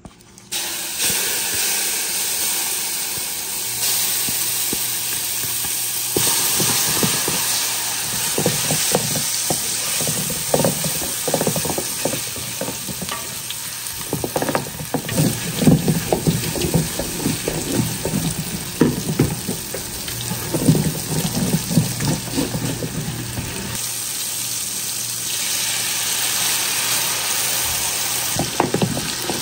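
Curry masala frying and sizzling in hot oil in a pot, a steady hiss, with irregular knocks and scrapes of a spoon stirring against the pot through the middle.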